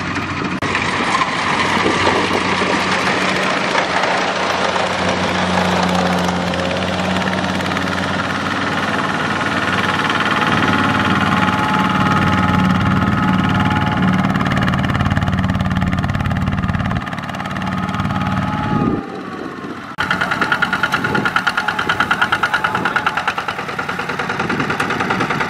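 Kubota RT140 walking tractor's single-cylinder diesel running steadily while it pulls a loaded trailer. About two-thirds through, after a brief dip, it changes to a fast, even chugging.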